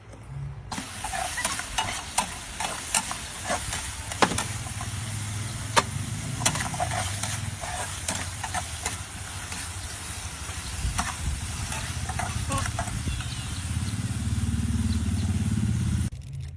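Food frying in hot oil: a steady sizzle with scattered sharp pops and crackles over a low hum. It starts suddenly under a second in and cuts off abruptly near the end.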